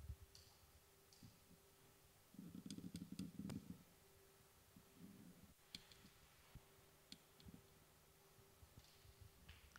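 Near silence: faint scattered clicks over a faint steady hum, with a brief low rumble about two and a half seconds in.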